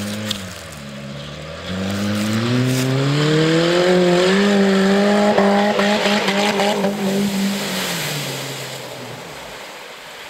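Small sedan's engine revving hard as the car ploughs through deep water, with water churning and splashing around it. The engine note climbs over a couple of seconds, holds high, then falls away and cuts out near the end.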